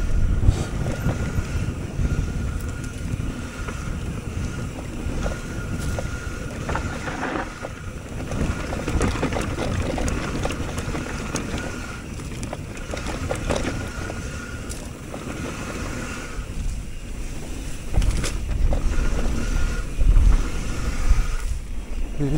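Mountain bike rolling down a dirt trail: tyres rumbling over dirt and rocks, the bike rattling over bumps, and wind on the microphone. A thin high buzz comes and goes, and the knocks are loudest near the end.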